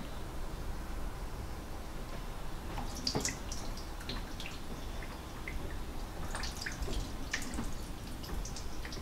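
Salt-water brine dripping and trickling from a bowl of salmon eggs into a kitchen sink as the eggs are strained off by hand. Scattered drips and small splashes come from about three seconds in until near the end.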